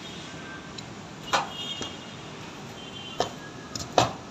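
A few scattered sharp knocks over steady background noise, the loudest one near the end.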